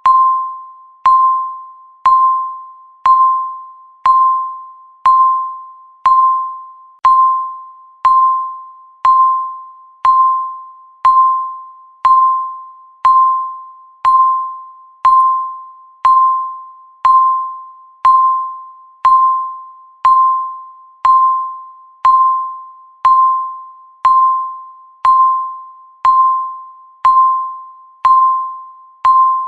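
Countdown timer beep sounding once a second: a short ping near 1 kHz that starts sharply and fades before the next, steady and evenly spaced.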